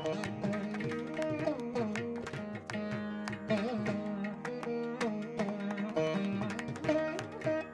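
Instrumental background music in an Indian classical style: a plucked string melody with bending notes over a steady drone, with quick drum strokes.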